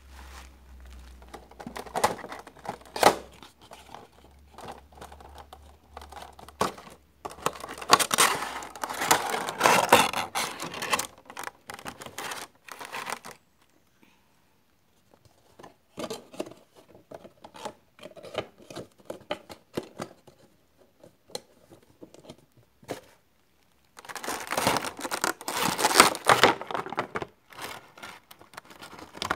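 Funko Pop packaging being opened by hand: the cardboard window box and the clear plastic insert crinkling, tearing and clicking in irregular bursts, with short quiet gaps between. The loudest handling comes about a third of the way in and again near the end, as the plastic insert is pulled apart.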